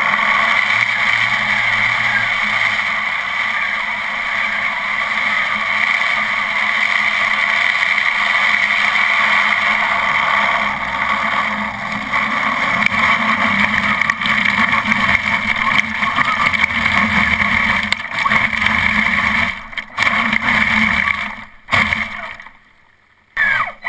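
Traxxas Summit RC truck's stock Titan 775 brushed electric motor and drivetrain whining steadily as the truck drives through muddy water, with water splashing off the tyres, heard from a camera mounted on the truck. Near the end the sound cuts out twice briefly, then drops almost to silence for about a second.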